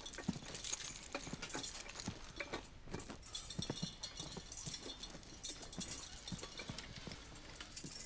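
A run of irregular light clicks, knocks and small metallic clinks, several a second.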